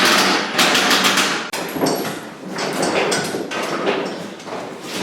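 A series of loud metal bangs as a steel roll cage is struck to knock it into place on its mounts, several blows in quick succession at first, then more spaced out.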